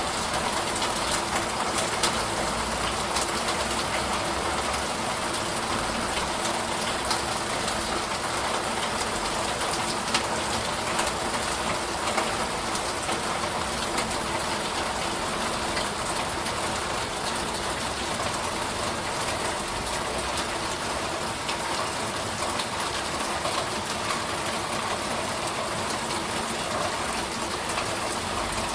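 Steady rain falling, an even hiss with many individual drops ticking throughout.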